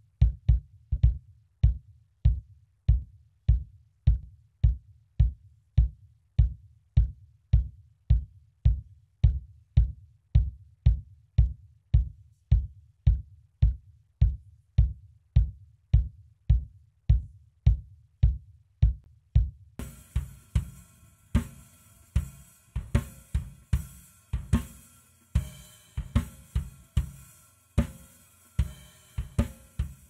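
Gated kick drum struck steadily about twice a second, each hit cut off short with silence between, the gate shutting out everything else. About two-thirds of the way through, the rest of the drum kit joins in, with snare, hi-hat and cymbals over the kick.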